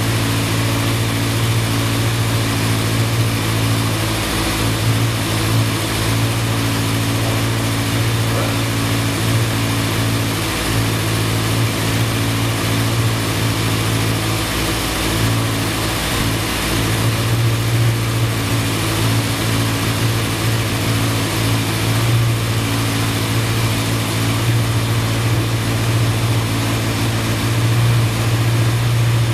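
Honda CB 750's air-cooled inline four-cylinder engine running steadily, a loud even hum with no breaks.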